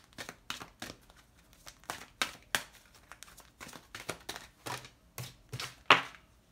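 A deck of oracle cards being shuffled by hand: irregular soft slaps and flicks of the cards against each other, with one sharper snap near the end.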